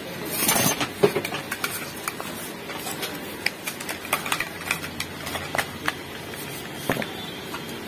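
The plastic housing of a Bosch angle grinder being handled and turned over on a workbench: a scraping rustle about half a second in, then scattered light clicks and knocks. The motor is not running.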